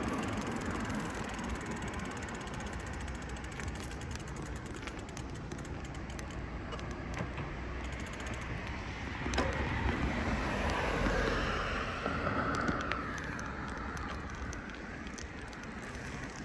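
Bicycle riding along a path: tyres rolling and wind on the microphone, a steady noise that swells for a few seconds in the middle, with scattered sharp clicks and rattles from the bike.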